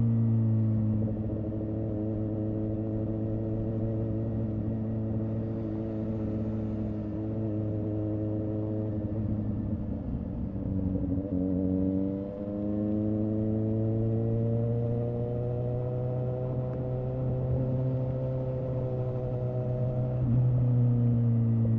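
2017 Suzuki GSX-S750's inline-four engine through a Yoshimura R11 exhaust with the dB killer removed, running under way. The note holds steady, dips and wavers about halfway through, then rises again in pitch and steps back down near the end.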